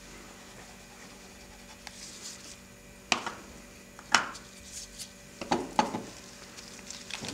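Lipstick tubes and nail-polish bottles clicking and clacking as they are handled and set down on a tabletop. There are a few sharp taps, about three, four, five and a half and six seconds in, with faint scratching between them.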